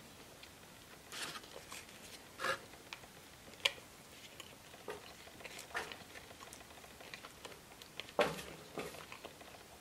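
Sparse small clicks and wet smacks of eating: a finger scraping out the last sauce from a small plastic dipping cup, along with mouth and finger-licking sounds. The strongest is near the end.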